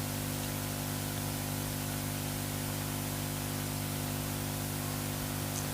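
Steady hiss with a low electrical hum underneath: the background noise of the recording or sound system.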